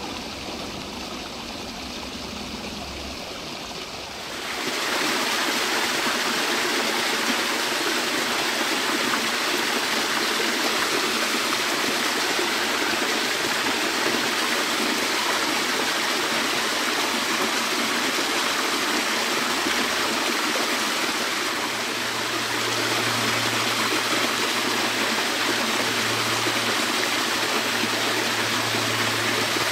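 Steady rushing water, stepping up in level about four seconds in, with a low pulsing hum joining about two-thirds of the way through.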